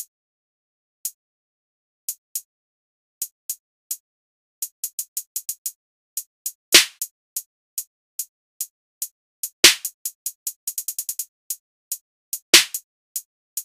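Sparse opening of a trap beat: hi-hat ticks at uneven spacing with a quick hi-hat roll a little past the middle, and three louder drum hits about three seconds apart.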